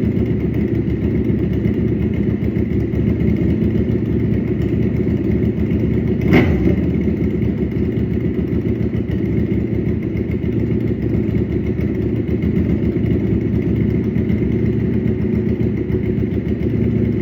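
Ducati Panigale 1299's L-twin engine idling steadily through an open, unbaffled exhaust, with one brief sharp crack about six seconds in.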